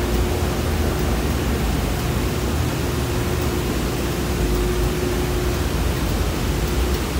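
Toshiba RX-series escalator running: a steady low rumble and hiss with a faint steady hum.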